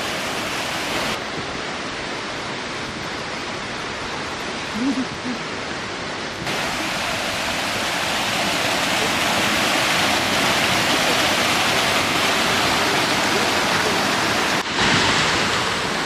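Small waterfall splashing down over rocks in a stream: a steady rushing of water, somewhat louder after about six seconds.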